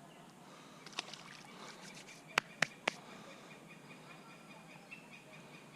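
Faint outdoor background noise with a few sharp clicks: one light click, then three loud clicks in quick succession.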